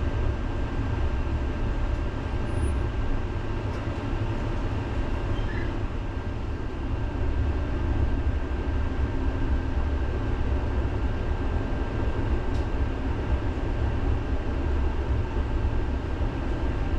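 Helsinki city tram in motion, heard from inside the car: a steady low rumble of wheels on rails, with a faint steady high whine over it.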